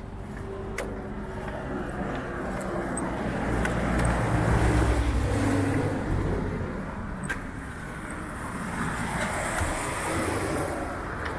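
Road traffic: a car passes close by, swelling to a peak about four to six seconds in and fading, then another goes by near the end.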